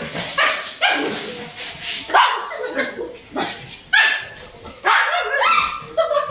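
Pug barking excitedly in about ten short, high yelps, a half-second to a second apart, while jumping up at a person.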